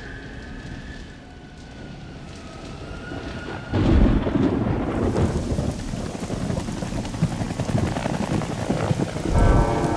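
A thunderclap about four seconds in that rumbles on into steady heavy rain, with a second loud rumble near the end. Before the thunder, a faint high tone fades away.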